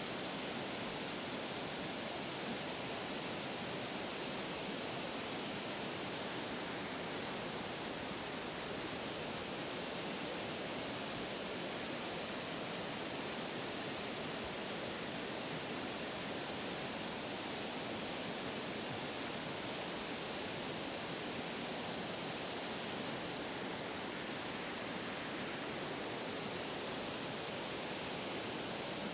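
River water flowing: a steady, even rush that does not change.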